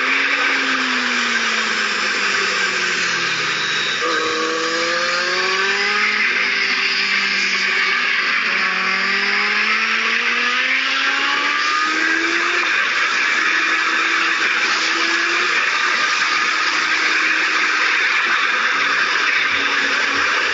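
Kawasaki Z750 inline-four motorcycle engine on track: its note falls as the bike slows for a corner, then climbs in several steps through the gears on the exit before running steadier. Heavy wind rush on the bike-mounted microphone lies over and partly buries the engine.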